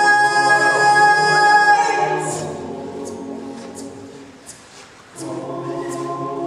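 All-male a cappella group singing: a held chord with a solo voice sliding over it fades out about two seconds in, leaving soft high ticks on a steady pulse. The group comes back in with a new sustained chord about five seconds in.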